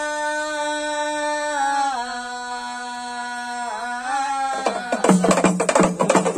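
Oggu ritual music: a long held melodic note that steps down in pitch about one and a half seconds in and wavers, then fast drumming with cymbal clashes breaks in loudly near the end.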